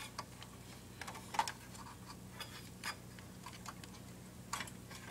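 Light, irregular clicks and taps of plastic console parts being handled and fitted back together while reassembling an Xbox 360, over a low steady hum.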